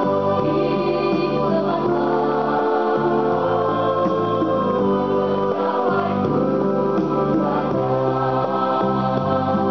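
Mixed school choir singing in held chords, with an electronic keyboard playing an organ-like accompaniment.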